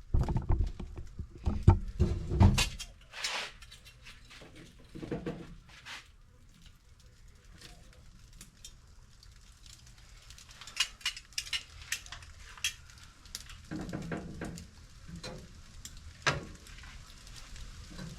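Metal tongs and utensils clinking and knocking against a charcoal grill's grate while steak and shrimp are handled, in scattered clusters of clicks with quieter gaps between.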